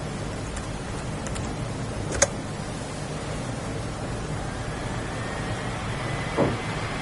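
Dell Vostro V131 notebook's cooling fan: a steady hiss, with a faint high-pitched whine that rises in pitch from about halfway through and then holds, as the fan spins up. A sharp click comes about two seconds in and a dull knock near the end.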